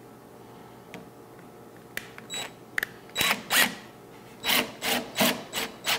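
Compact cordless driver driving screws into the side of a wooden cabinet, running in short trigger bursts, about seven in the second half, after a few light clicks early on.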